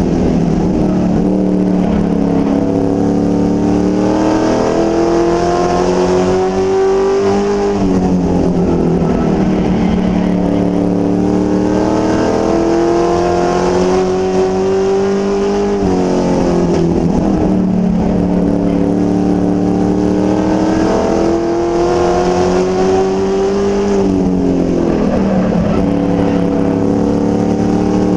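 A NASCAR race truck's engine heard from inside the cab at racing speed. Its pitch climbs steadily for several seconds, then drops sharply as the driver lifts off for a corner, and builds again; the cycle repeats about every eight seconds, three times.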